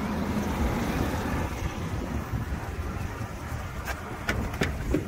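Wind rumbling on the microphone, then a few sharp clicks near the end as a vehicle's exterior door handle is pulled and the latch releases.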